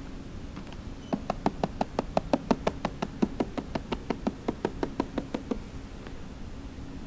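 A rapid, even run of sharp knocks, about six a second, starting about a second in and stopping about four and a half seconds later, over a steady low hum.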